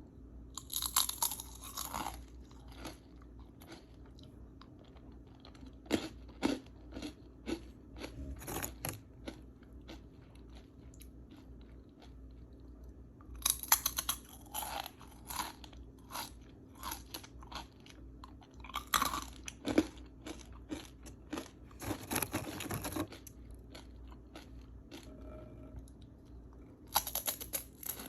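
A person biting and chewing crunchy okra: about six loud, crisp crunches at the bites, with quieter chewing crunches in between.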